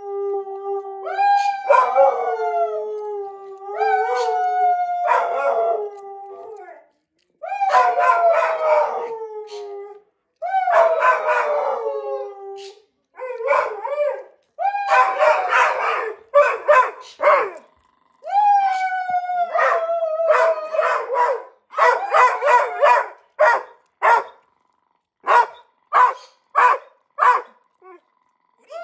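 Dog howling: a series of long howls, each sliding down in pitch, with short gaps between them. Near the end the calls turn short and choppy, coming in quick succession like barking yips.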